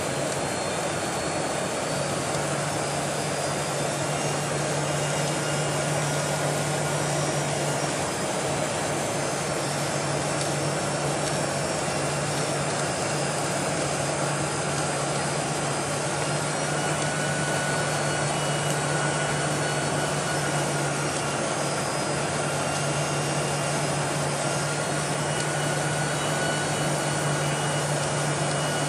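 Inside the cabin of a Boeing 747-400 descending on approach: the steady rush of airflow and the GE CF6-80C2 turbofans. A low steady hum joins about two seconds in, with faint high whining tones above it.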